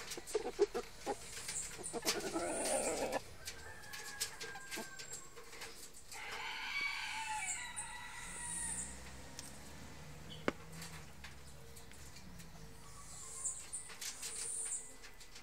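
Chickens clucking, with a rooster crowing once about six seconds in, and a few sharp clicks.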